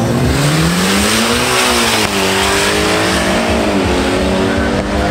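Two Mitsubishi Lancer Evolution X sedans, with turbocharged 2.0-litre four-cylinder engines, launching off a drag strip start line and accelerating hard away. The engine note climbs, drops at an upshift about two seconds in, and drops again at another shift near four seconds.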